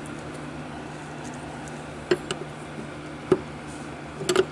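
A wrench clicking and knocking against a nut and the metal of a hydraulic valve linkage: several short sharp clicks, the loudest about three seconds in, over a steady low hum.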